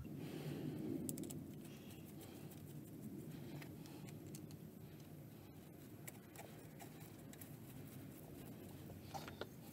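Faint rustling and small metallic clicks of hands handling and positioning a lathe apron casting and its clamp plate, with a couple of sharper clicks near the end.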